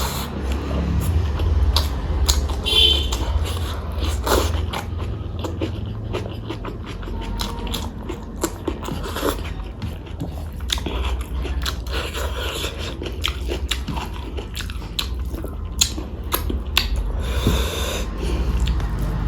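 A person eating close to the microphone: steady chewing and biting with many small wet smacks and clicks and occasional crunches.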